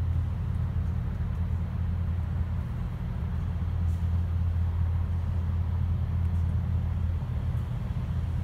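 Steady low rumble of a car's engine and road noise, with no distinct separate sounds over it.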